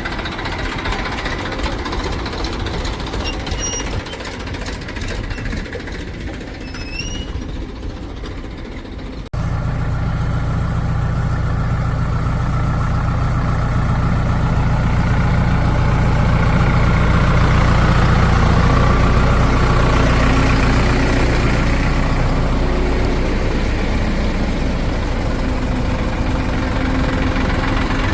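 Heavy diesel engine running with a knocking clatter. About nine seconds in, the sound cuts abruptly to a louder, deeper diesel engine running steadily.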